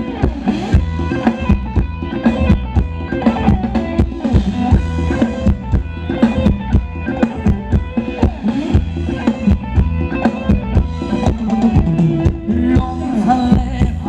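Live Thai band playing upbeat ramwong dance music: a steady drum-kit beat with bass and guitar.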